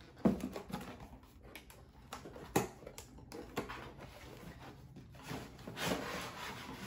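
Cardboard boxes of dishes being handled: several sharp knocks and taps as boxes are set down and picked up, and a longer scraping rub of cardboard a little after five seconds in as a boxed set is slid out.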